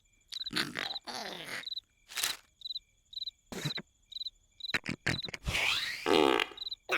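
Cartoon sound track: cricket chirping about twice a second runs steadily behind a string of loud, irregular comic snores and vocal noises from the cartoon characters.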